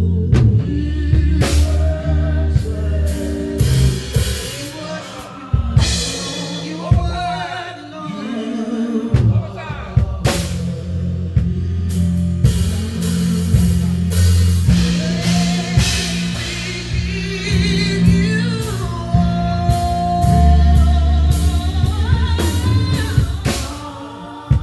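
A live band playing a song: voices singing over a drum kit, with frequent drum hits and cymbal crashes and sustained low bass notes.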